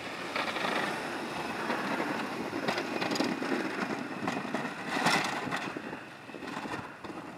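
SUV with a front-mounted snowplow passing close by, its engine running as the blade pushes snow, with a steady rushing noise and scattered crunching.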